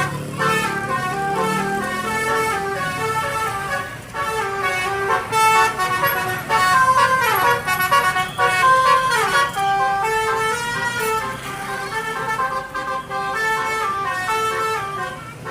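Tour bus's musical basuri (telolet) horn playing a tune: a rapid run of steady horn notes stepping up and down in pitch, continuing for many seconds.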